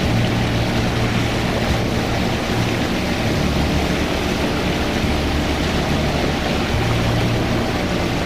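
The inboard engine of a 30-foot sailboat running steadily as it motors into harbour: a low, even drone with a rushing of wind and water over it.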